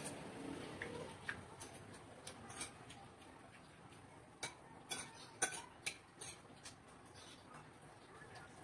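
Scattered light clicks and taps of a spoon against bowls and plates while eating, with a quick run of them through the middle.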